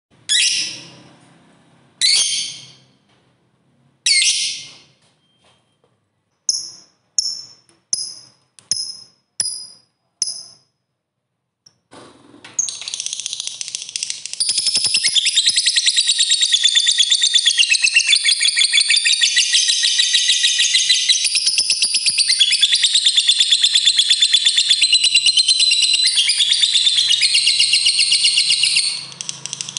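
Lovebird calling: three loud harsh shrieks about two seconds apart, then a quick run of six short high chirps, then, a little before halfway, a long unbroken rapid chattering trill, the fighter lovebird's long 'ngekek', which dips briefly near the end and starts again.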